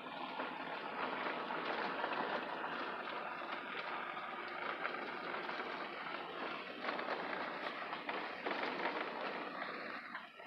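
Car driving slowly over a rough dirt road: steady tyre and gravel noise with many small clicks and rattles.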